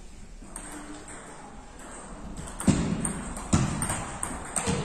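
Table tennis ball clicking off the rackets and bouncing on the table during a rally: a few sharp clicks, a second or so apart, louder in the second half.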